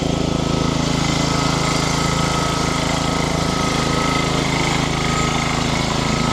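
Yazoo mower's engine running steadily with a fast, even pulse.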